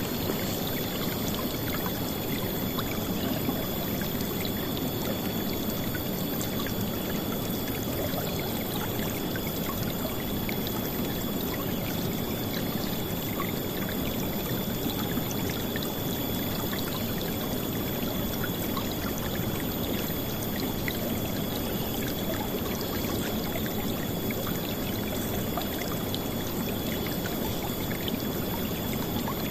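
A river flowing and splashing in a steady, even rush of water with no let-up. A faint steady high tone runs underneath.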